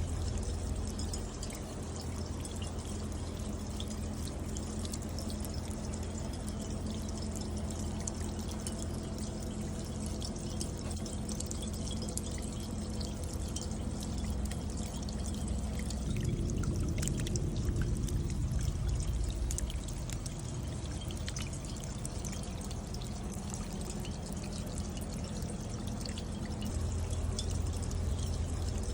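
Rainwater pouring and dripping down a copper bucket rain chain, a steady flow with many small scattered drips. The flow swells briefly a little past halfway.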